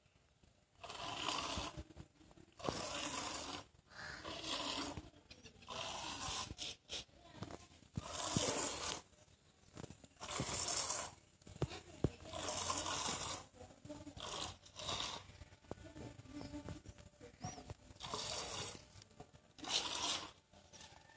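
Hand-milking a goat into a steel bowl: squirts of milk hiss into the bowl, one about every two seconds.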